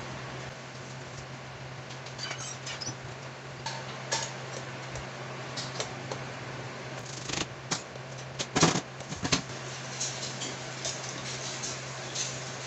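A screwdriver clicking and scraping on the small screws of a chrome reverse-light bezel as they are undone, with the metal bezel and lamp housing handled on cardboard. A short run of louder clatters of metal parts comes a little after the middle. A steady low hum runs underneath.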